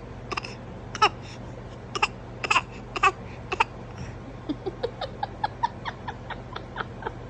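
A four-month-old baby fake coughing: short forced coughs from the throat, loud ones about every half second, then a quicker run of softer little coughing sounds, about three a second, from about halfway in.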